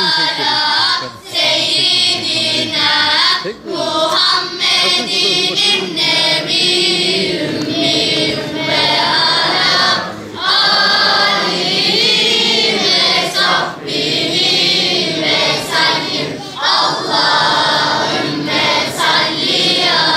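Children's choir singing together in phrases, with brief breaks between lines.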